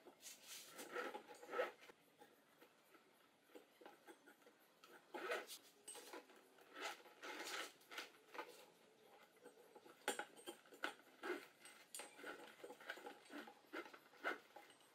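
Rope being threaded and pulled through holes in a rubber tyre: faint, irregular rustling and scraping of rope on rubber.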